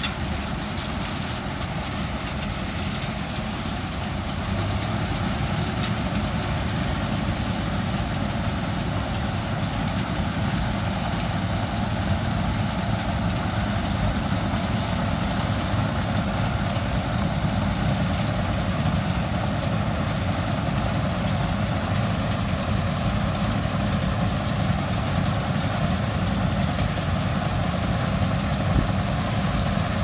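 Combine harvester's diesel engine and threshing machinery running steadily under load as it cuts rice, growing a little louder about four seconds in as it comes closer.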